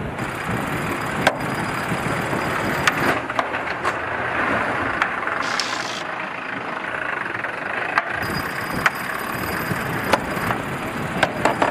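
Pedestal grinder winches on a Volvo 65 racing yacht being cranked, a steady mechanical whirr with scattered sharp clicks as the winch drum hauls in the sheet.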